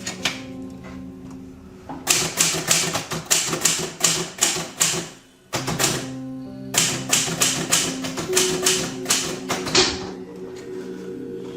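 Typewriter keys struck in two quick runs of rapid clacking, a few strikes a second, with a short pause between them, over background music with held low notes.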